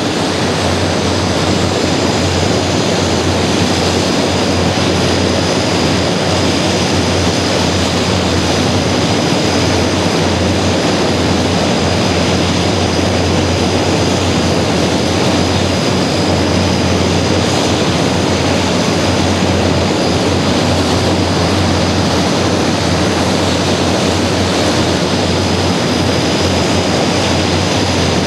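Antonov An-12's Ivchenko AI-20 turboprop engines running steadily on the ground: a continuous loud propeller drone with a low hum underneath and a thin, steady high-pitched whine.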